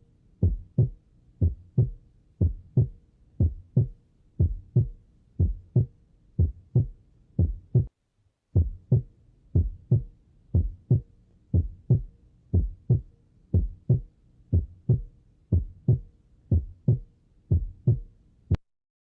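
Heart sounds heard through a stethoscope: low lub-dub beats repeating steadily. They drop out briefly a bit under halfway through, then cut off with a click shortly before the end.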